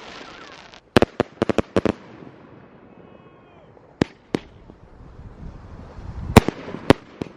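Fireworks going off: a quick string of sharp cracks about a second in, then single bangs spread through the rest, the loudest about six seconds in.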